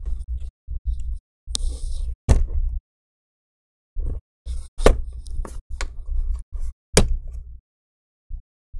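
Dell XPS 15 7590 laptop being handled and repositioned: thumps and knocks of the metal chassis and screen against the desk, with several sharp clicks. It comes in short bursts, with a pause about three seconds in.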